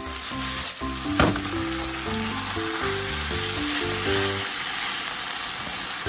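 Liver, garlic chives and bean sprouts sizzling steadily as they are stir-fried in a frying pan, stirred with chopsticks and tossed, with two sharp knocks about a second in. Background music with a short-note melody plays along.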